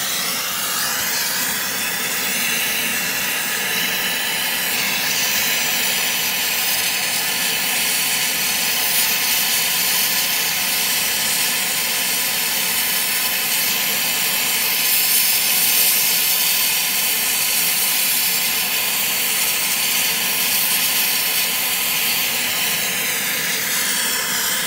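Brazing torch flame hissing steadily while a copper refrigerant-line joint is heated and brazed with silver brazing rod.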